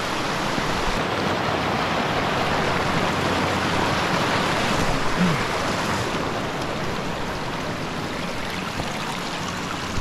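Shallow river rushing over a rock ledge and stones: a steady hiss of flowing water, growing a little quieter over the last few seconds.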